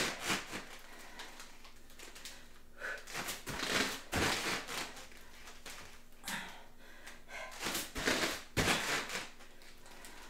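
A person breathing hard through a set of push-ups with plank jacks: sharp, noisy exhales in clusters a few seconds apart, with a few dull thumps among them.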